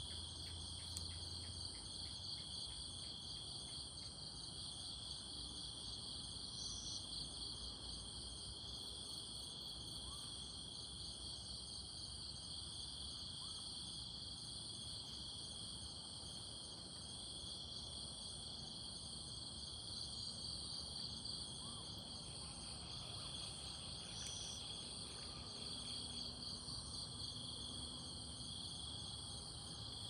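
Chorus of insects in the forest, a steady high-pitched trilling in several overlapping pitches.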